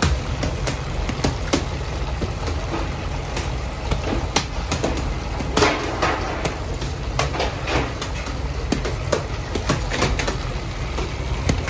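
Metal bench scraper chopping through dough and knocking on a steel worktable in irregular sharp clacks, one louder than the rest about halfway through, over the steady low hum of bakery machinery.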